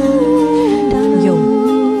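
One woman's voice, overdubbed several times, humming long held notes in harmony. The chord shifts about a second in.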